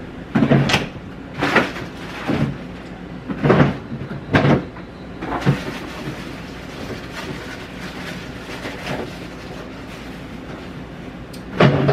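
Irregular knocks and clatter of kitchen work at the counter, several sharp ones in the first few seconds and then fainter small clicks, over a steady low hum.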